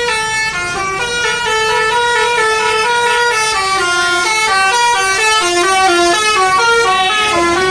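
Indonesian 'telolet' bus horn playing its tune: several horn tones sounding together and stepping rapidly from note to note, at a steady level.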